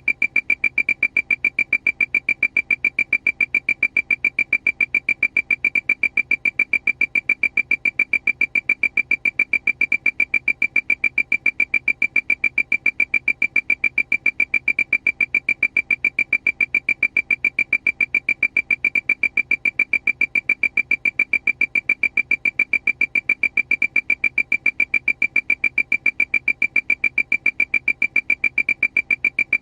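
Aircraft alarm: a single high electronic beep repeating rapidly and evenly, several times a second, without let-up.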